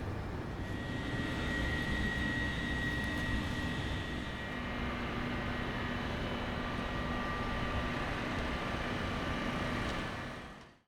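Choshi Electric Railway 2000-series electric train running: a steady rumble with a high, even whine over it, fading out near the end.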